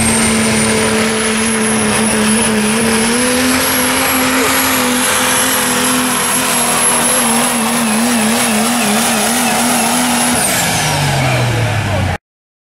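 Dodge Ram's Cummins turbo-diesel engine at full throttle pulling a weight sled, with a high, steady turbo whistle over the engine. The engine note warbles briefly near the end of the pull, then the throttle comes off about ten seconds in and the whistle and engine pitch fall away together before the sound cuts off suddenly.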